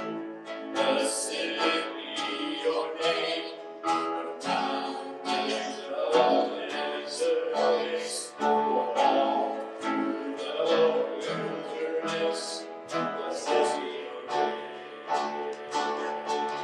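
Worship song: an acoustic guitar strummed in a steady rhythm, with singing.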